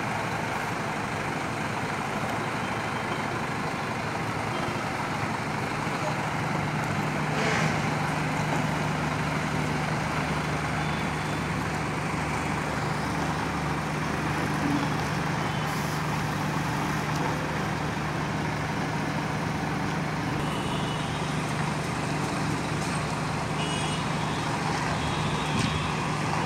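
Scania multi-axle coach's diesel engine running steadily at low speed as the coach manoeuvres to park, with a brief hiss about seven and a half seconds in.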